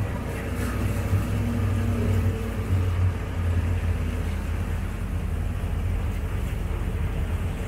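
Off-road vehicle's engine running with a steady low rumble, heard from inside the cab while driving along a wet road, with an even road and tyre hiss over it.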